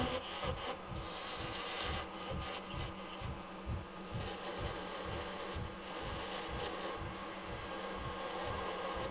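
Vintage Rockwell Delta wood lathe running while a quarter-inch parting tool cuts into a spinning Chakte Viga spindle, sizing its end to 5/8 inch. A steady scraping hiss of the cut sits over the lathe's motor hum and a regular low throb several times a second.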